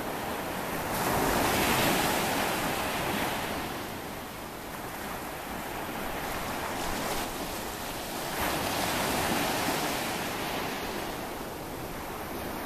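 Ocean surf breaking and washing up a sandy beach, a steady rush that swells louder as a wave breaks about a second in and again around eight seconds.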